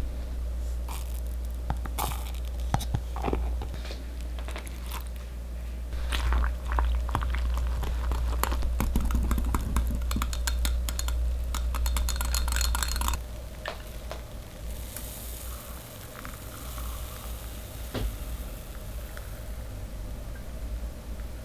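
Wire whisk stirring a cocoa glaze mixture in a glass measuring jug: quick clinks and scrapes of the wires against the glass over a low steady hum. About halfway through the whisking and the hum stop, leaving a quieter stretch with a faint hiss.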